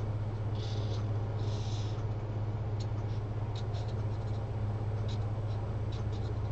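Felt-tip marker drawing on paper: a few short scratchy strokes in the first two seconds, then light scattered ticks of the tip. A steady low hum runs underneath.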